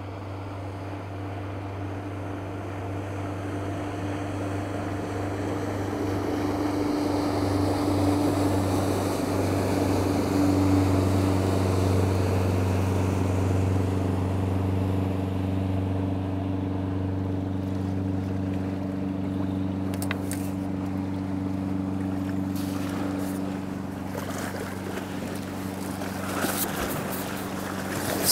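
A motorboat towing a water skier passes at speed. Its engine runs with a steady tone that grows louder to a peak about halfway through and then fades. A few sharp clicks come near the end.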